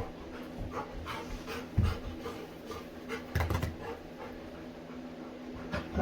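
A Labrador retriever panting, with a few dull bumps about two and three and a half seconds in.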